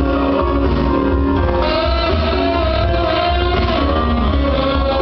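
Recorded song with a singing voice over guitar and a strong, steady bass line.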